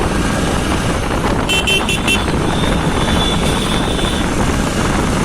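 Honda SP 125's single-cylinder engine running while riding on the road, with steady wind and road noise on the rider's microphone. A few short high beeps sound about a second and a half in, and a longer high tone follows about a second later.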